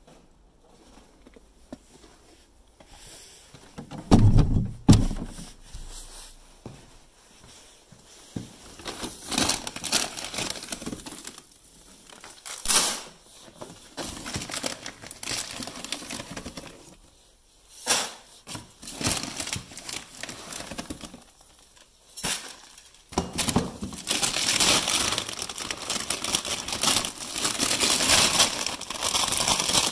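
Plastic feed bags crinkling and rustling while chicken scratch grain is put into a rubber feed pan, with long stretches of dense rustling. There are two heavy thumps about four seconds in and a few sharp clicks later on.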